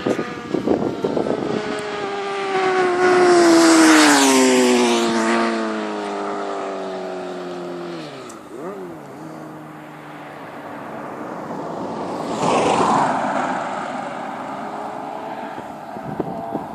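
Suzuki GSX-R600 inline-four motorcycle engine winding down, its pitch falling steadily for several seconds with the loudest point about four seconds in. A quick throttle blip follows about eight seconds in, then a second swell of noise around twelve to thirteen seconds before it settles.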